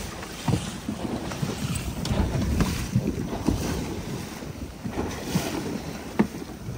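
Wind buffeting the microphone over water slapping against a small boat's hull at sea, with a few sharp light knocks, one about half a second in and one near the end.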